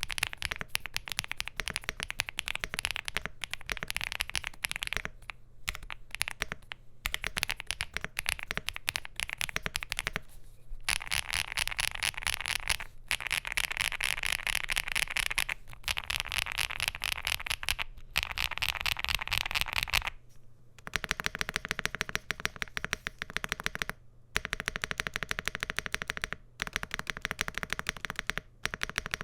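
Fast, continuous typing on a Bridge75 Plus mechanical keyboard with SC linear switches, PBT Cherry-profile keycaps and an FR4 plate: a dense stream of key clicks in long runs, with a brief pause every few seconds.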